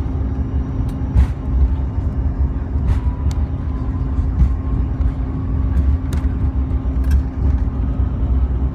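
Cabin noise inside a CRJ-700 regional jet taxiing onto the runway: its rear-mounted engines hum steadily over a heavy low rumble, with a few sharp clicks and knocks.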